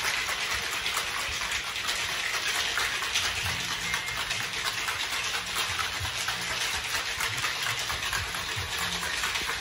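Ice and liquid rattling and sloshing in a cocktail shaker shaken hard and fast, a steady dense clatter that goes on without a break.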